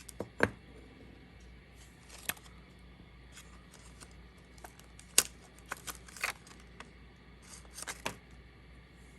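Small items being handled: scattered light clicks, taps and rustles, with one sharp click about five seconds in the loudest.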